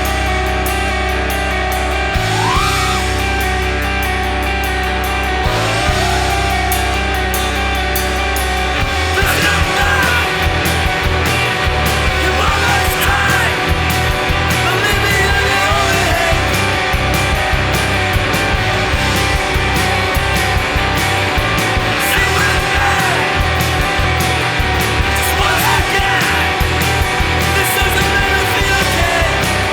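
Rock music with distorted electric guitars and a steady beat, and a singing voice heard in places; the drums come in about nine seconds in.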